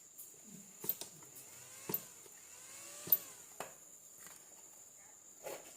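A few light clicks and taps from handling equipment on the workbench, the loudest about three seconds in, over a faint steady high-pitched whine.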